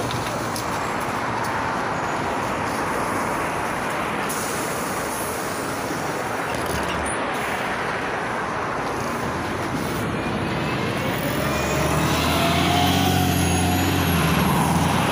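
Volgabus-5270.G2 city bus, running on liquefied natural gas, running steadily at a bus stop, then pulling away about twelve seconds in, its engine growing louder with a rising whine as it accelerates.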